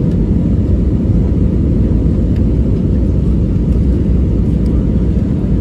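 Steady low rumble inside a jet airliner's cabin on approach to landing: engine and airflow noise, with the flaps extended.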